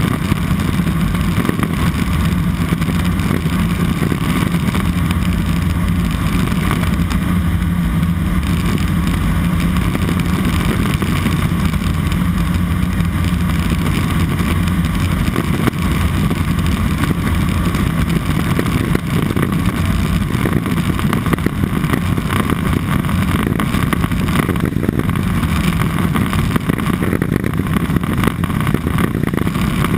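Cessna 206 Soloy's turboprop engine and propeller running steadily with an even, unbroken drone.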